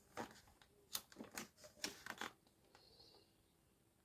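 Faint, scattered clicks and light rustles of glossy magazine pages being handled and turned, bunched in the first two and a half seconds.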